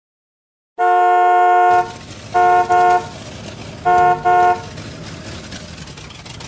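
A vehicle horn sounds one long honk, then beeps twice, pauses, and beeps twice again, over a steady low engine rumble.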